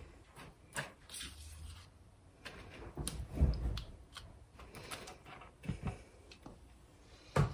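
Kitchen handling sounds as sour cream is measured and scooped into a mixing bowl: scattered light clicks and knocks of a spoon and containers, with a soft low thump about three and a half seconds in.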